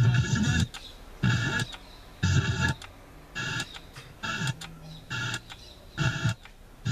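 Radio sound from a Technics SA-290 receiver's tuner through a speaker, coming in short bursts of voice or music about once a second and dropping out between them, as the tuning passes from station to station.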